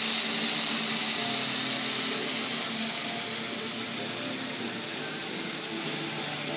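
CO2 laser engraving and cutting machine running: a steady hiss from its air assist and exhaust, with faint tones underneath that shift in pitch.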